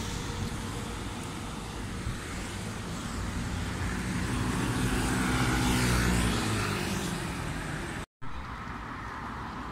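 Street traffic noise with a vehicle passing close by: its engine rises and falls over a few seconds, loudest about five to six seconds in. The sound cuts out completely for a moment just after eight seconds.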